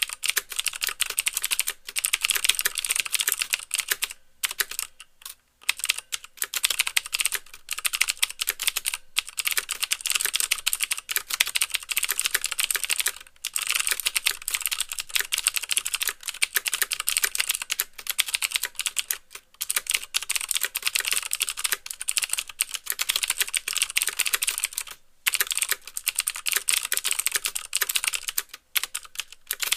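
Continuous fast typing on a mechanical keyboard with Cherry MX Blue clicky switches: a rapid run of sharp clicks, each keypress clicking and bottoming out with a clack, broken by a few short pauses.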